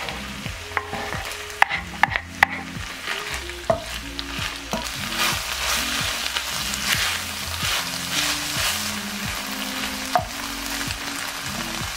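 Minced beef and sliced onions sizzling in a frying pan as they are stirred, with sharp scrapes and taps against the pan, most of them in the first few seconds. The sizzle grows louder near the middle.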